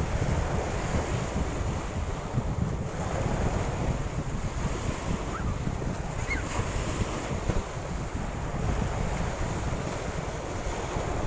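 Wind buffeting the microphone, a steady low rumble, over small waves washing onto the shore.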